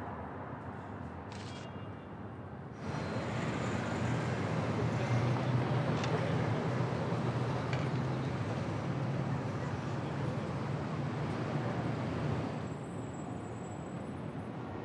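City street traffic noise: a vehicle's low engine drone and road noise come in suddenly about three seconds in and cut off shortly before the end, over a quieter street hum.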